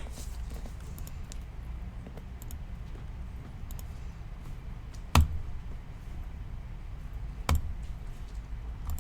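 Low steady room hum with a few faint clicks, and two sharp knocks, one about five seconds in and one about two seconds later; the first knock is the louder.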